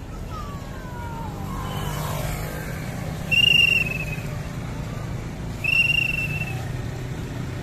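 Two high, clear whistle blasts, about two seconds apart, the second one longer, over a steady low background rumble.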